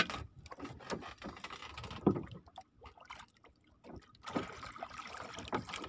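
Water splashing and scattered knocks and handling sounds at the side of a small fishing boat as a hooked trevally is brought alongside to be speared and landed, with a short quiet spell past the middle.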